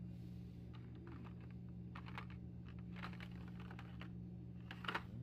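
Light plastic clicks and rustles of blister-packed Hot Wheels cars being handled and flipped through, in small clusters, over a steady low hum.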